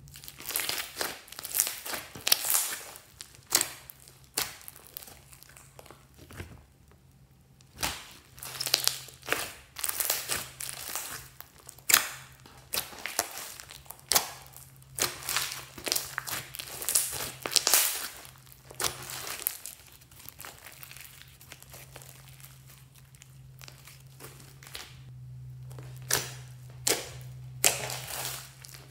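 Hands squeezing and pressing slime, giving a run of short, sharp crackles and sticky pops at irregular intervals, with a pause of a couple of seconds about a quarter of the way in.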